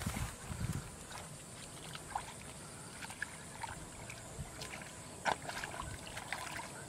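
Hands groping and splashing in shallow muddy paddy water, with scattered small splashes and drips and one sharper splash about five seconds in.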